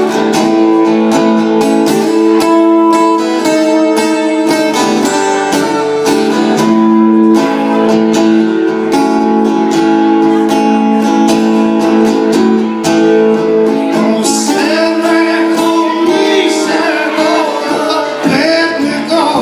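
Acoustic guitar strummed steadily. A singing voice joins in about two-thirds of the way through.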